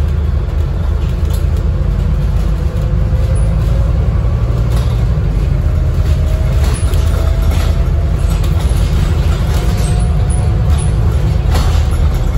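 Scania N250UD double-decker bus on the move, heard from the upper deck: a steady low rumble from the diesel engine and road, with a faint whine rising slowly in pitch and occasional light rattles and clicks.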